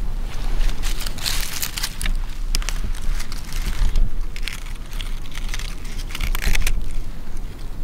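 Dry fallen leaves and brush crunching and rustling underfoot in irregular crackles, over a steady low rumble.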